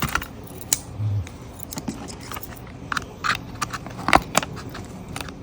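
The small spring scissors of a Gerber Splice keychain multi-tool snipping, a string of sharp clicks and snips at uneven intervals, the loudest about four seconds in.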